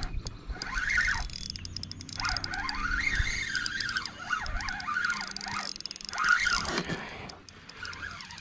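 Spinning reel being cranked in while a hooked bass is fought: a whirring whine that rises and falls in pitch again and again, with light clicks over it.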